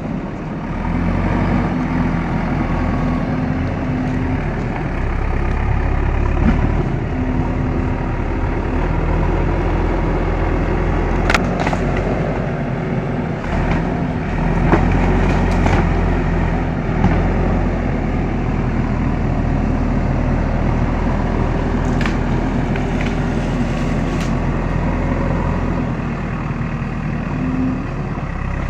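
JCB 3DX backhoe loader's diesel engine running under changing load as the machine works, its pitch and level stepping up and down. A few sharp knocks are heard over it.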